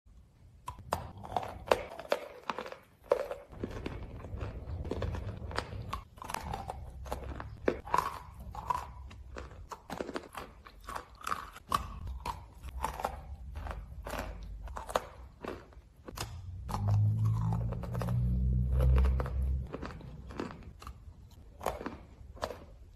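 Close-miked crunching, biting and chewing of lumps of chalk, clay and cornstarch, with a rapid run of sharp crunches. A louder low rumble comes in for a few seconds about two-thirds of the way through.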